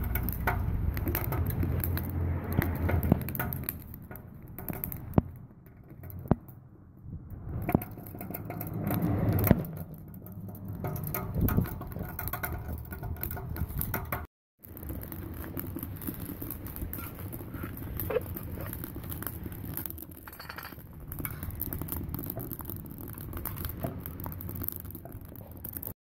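Sticks burning in a homemade rocket stove: a low steady rumble with scattered crackles and ticks, cutting out briefly about halfway through.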